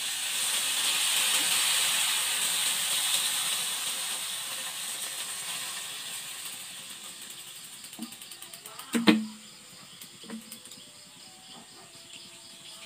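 Hot wok of river shrimp hissing and steaming as water is poured in from a bottle. The hiss is strongest at first and slowly dies away, with a sharp knock about nine seconds in.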